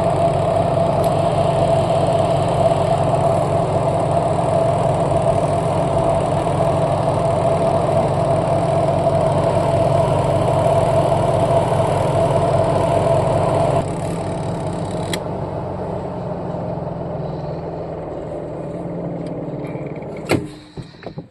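Washing machine running with a steady motor hum and whine. The motor cuts off about 14 seconds in and the sound dies away over several seconds as the drum coasts down, then a sharp clunk comes near the end.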